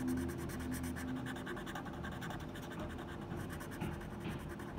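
Felt-tip marker scratching back and forth on paper in rapid, even strokes, colouring in a small box.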